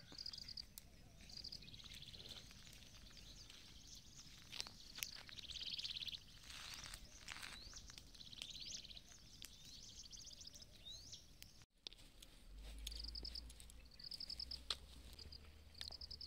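Faint rural outdoor ambience: insects trilling in short repeated pulsed bursts, with a few brief bird chirps. A low rumble comes in about twelve seconds in.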